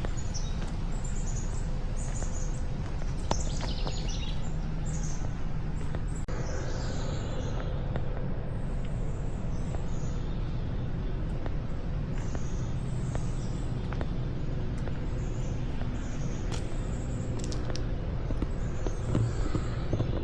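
Songbirds chirping, many short high notes repeated throughout, over a steady low rumble, with a few scattered sharp knocks.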